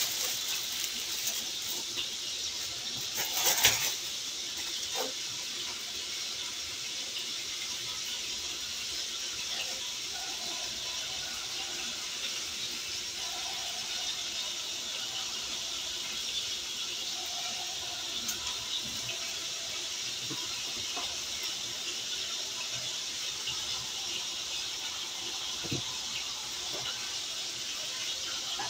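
Food frying in a skillet on an electric stove: a steady sizzle, with a brief clatter about three and a half seconds in.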